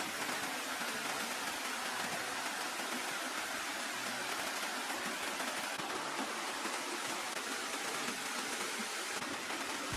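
Steady, even water noise, a constant hiss with no distinct drops, splashes or other events.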